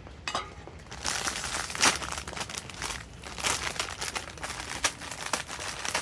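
Packaging crinkling and rustling as it is handled, in irregular crackly bursts that start about a second in, the loudest just before the two-second mark.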